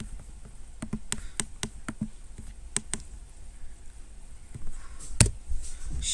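Sharp clicks from a laptop being used, several in quick, irregular succession, then a single louder click about five seconds in.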